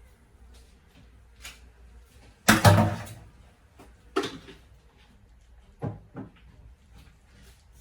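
Kitchen clatter of utensils and containers being knocked and set down: a loud rattling knock about two and a half seconds in, a second knock a couple of seconds later, and two light taps near the end.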